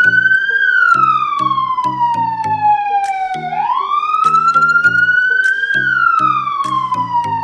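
Electronic police siren doing a slow wail: its pitch falls, rises again about halfway through, then falls once more. Underneath runs a music track of short, stepping low notes with light clicks.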